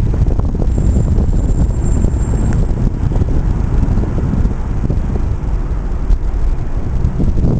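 R142A subway train running on elevated steel track: a loud, steady low rumble dense with rattling and knocking from the wheels and structure, with wind buffeting the microphone.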